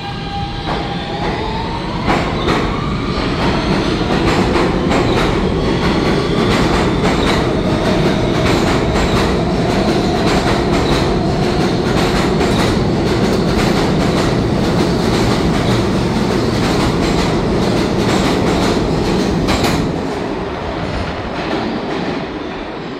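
R160 subway train's Siemens traction motors whining and rising in pitch as the train accelerates out of the station. Under the whine are a heavy rumble and a quick run of wheel clicks over the rail joints as the cars pass. The noise drops about twenty seconds in as the last car pulls away into the tunnel.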